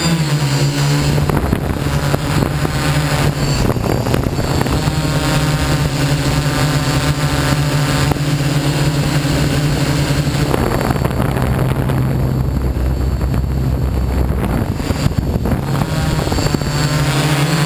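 Multirotor drone's electric motors and propellers humming steadily. Between roughly ten and fifteen seconds in, the higher part of the hum fades and a low rumble takes over; then the full hum returns near the end.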